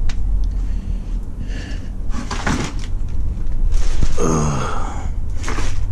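Knocks and bumps of moving about inside a wooden cabinet, with a cupboard door opening or closing, over a steady low hum. About four seconds in comes a louder short sound that falls in pitch.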